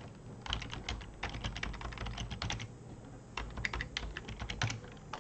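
Typing on a computer keyboard: two runs of quick keystrokes, the second shorter than the first.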